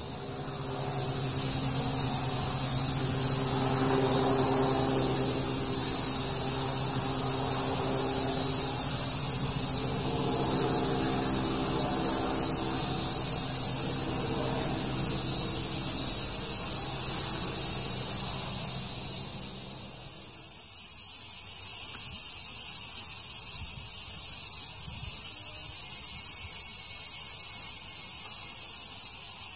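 Cicadas buzzing steadily in a continuous high-pitched drone, louder after a cut about two-thirds of the way through.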